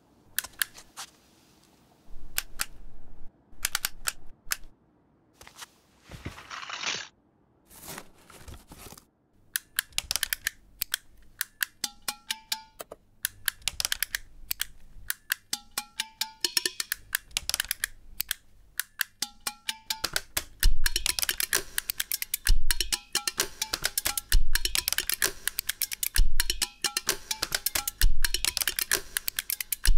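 Wall switches clicking, at first a few scattered clicks, then built into a dense percussive beat with short pitched notes. A deep bass beat joins about twenty seconds in.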